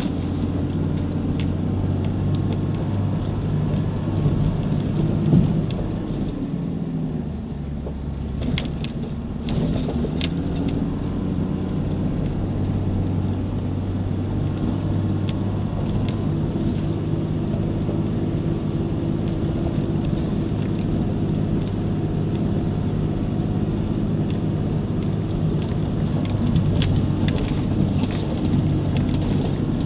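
Land Cruiser 4x4's engine running steadily at low revs while crawling along a dry dirt trail, heard from inside the cab. The engine note dips for a few seconds partway through. Scattered knocks and rattles come from the tyres on stones and from the cab.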